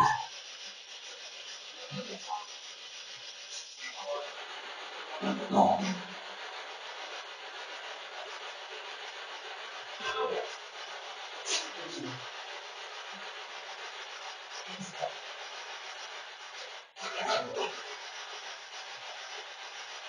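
Spirit box sweeping through radio frequencies: a steady hiss of static broken by short snatches of voices, about half a dozen of them. The static drops out for a moment near the end.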